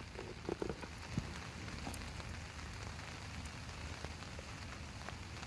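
Steady light rain falling, a continuous even patter.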